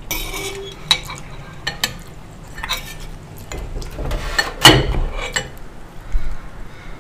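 Metal spoon clinking and scraping against a ceramic soup bowl as beef ribs are scooped out of the broth, with scattered clicks and a louder clatter about two-thirds of the way through.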